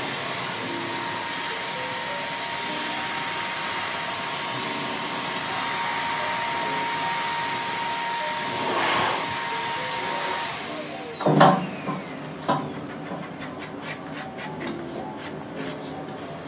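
Pet blow dryer blowing steadily with a high whine, switched off about ten seconds in, its whine falling as the motor spins down. Then a loud knock and scattered light clicks.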